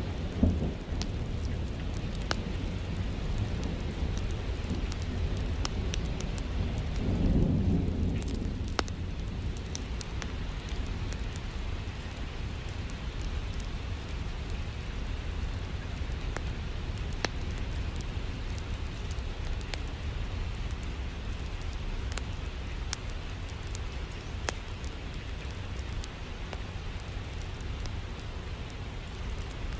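Steady rain with a low thunder rumble that swells and fades about seven seconds in. Scattered sharp crackles from a fireplace fire run over the rain.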